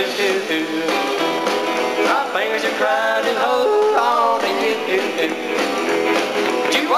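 Live country-blues band playing, with an electric guitar to the fore.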